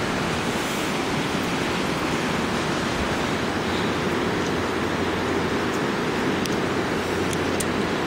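Steady, even rush of flowing river water.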